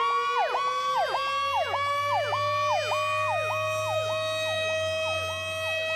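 Fire apparatus siren: a mechanical siren winds up in a slowly rising wail, while an electronic siren cycles over it, jumping up, holding and dropping about one and a half times a second. The electronic cycle fades over the last couple of seconds.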